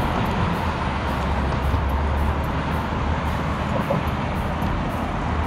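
Steady road traffic noise from cars driving along a busy road below, an even rush of tyres with a low rumble.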